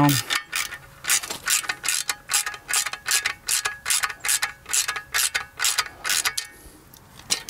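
Hand ratchet wrench clicking in quick, even strokes, about three a second, as it tightens lag bolts into a wall; the clicking stops near the end.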